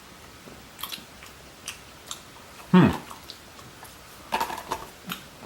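A person chewing a bite of chocolate candy with soft clicks and crunches, and a short vocal sound about three seconds in.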